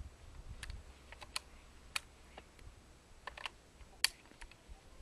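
Faint, scattered light clicks and ticks at an irregular pace, with one sharper click about four seconds in.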